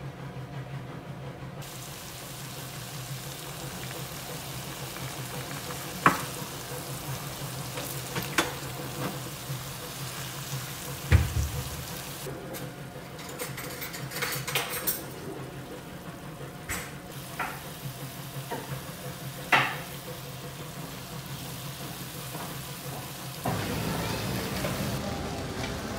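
Aged kimchi sizzling as it is stir-fried in oil in a nonstick wok, a steady hiss with a few sharp knocks as the spatula is pushed against the pan. About two and a half seconds before the end, a louder, different background sound takes over.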